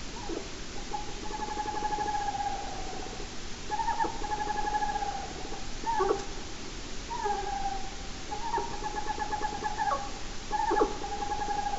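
An unidentified night animal giving loud, repeated drawn-out calls. Each call holds one slightly buzzy note for about a second and repeats every second or two, and a few short, sharp notes drop steeply in pitch, about three times. The caller could be a bird or something else; it sounds like it has a good set of lungs.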